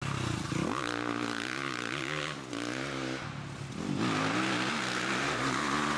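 Enduro motorcycle engine idling, its pitch wavering and rising a little with small throttle changes, dipping briefly about halfway through before running on.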